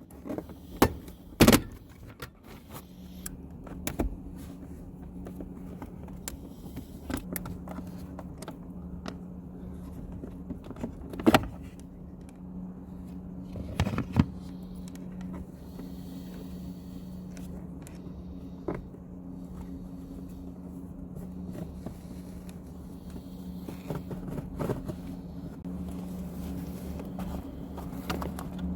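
Scattered clicks and knocks of hand work on the van's interior trim: a Torx screw being undone and a plastic panel pulled off to reach the cabin air filter. A steady low hum runs under it from about two seconds in.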